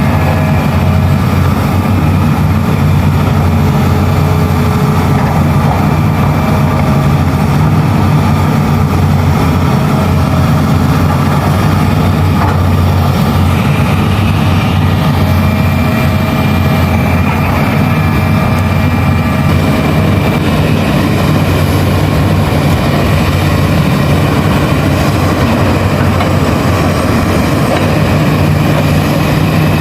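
Heavy diesel engine of a large Hitachi crawler excavator running steadily and loudly, with a constant low hum.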